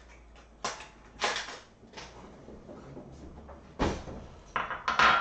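Kitchen clatter: about five separate sharp knocks and clunks of things being handled and set down on the counter, one of them a deeper thump about four seconds in and the loudest near the end.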